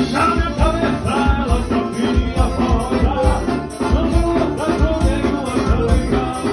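Music with a steady drum beat and pitched melody lines, played loudly.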